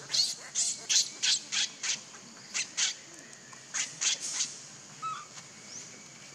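Baby macaque screaming in short, shrill cries, about three a second at first, then in a few spaced pairs and threes that stop by about halfway through.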